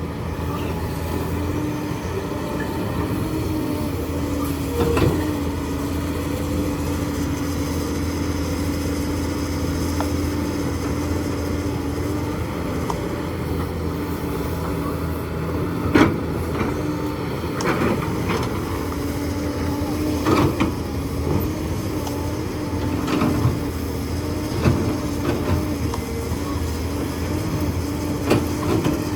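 Hydraulic excavator's diesel engine running steadily with a held hum, with sharp knocks now and then as it works, the loudest about halfway through.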